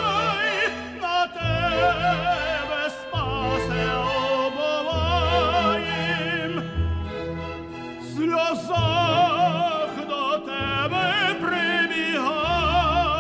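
Operatic singing with a strong, wide vibrato over sustained instrumental accompaniment.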